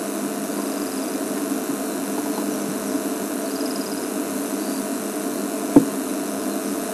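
Game-drive vehicle's engine idling steadily, with a single sharp click near the end.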